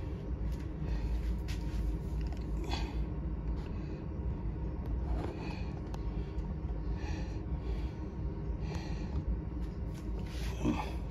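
Faint scraping and clicking of a hand screwdriver turning the deadbolt's mounting screws by hand, over a steady low rumble.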